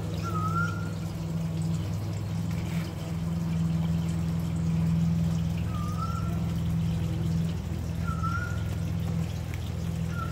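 A steady low hum with a faint trickling hiss, over which a bird gives a short rising whistle four times: near the start, about six and eight seconds in, and at the end.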